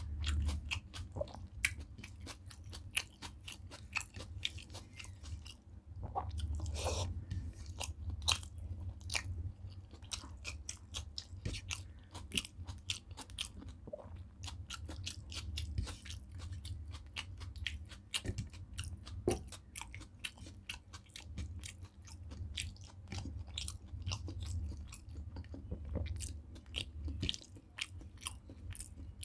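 Close-miked chewing of a mouthful of rice, dal and vegetable curry, with a steady run of quick, wet mouth clicks and lip smacks.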